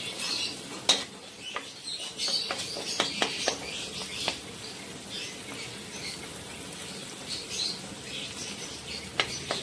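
Wooden spatula stirring pork, onion and tomato frying in a non-stick wok: a steady sizzle with scattered clicks and knocks of the spatula against the pan, most of them in the first half.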